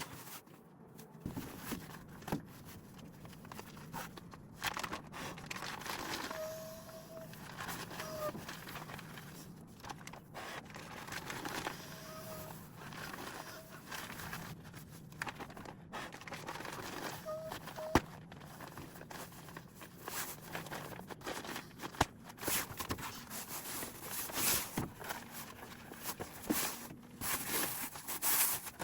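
Close-up rustling and crinkling, with scattered light clicks and knocks and a few brief faint squeaks; the rustling grows busier near the end.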